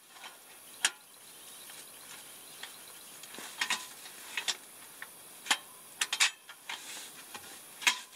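Irregular sharp clicks and clacks of a cassette butane gas can being fitted into the holder of a small Gaspia portable gas heater and its latch being worked, some in quick pairs, over a faint hiss.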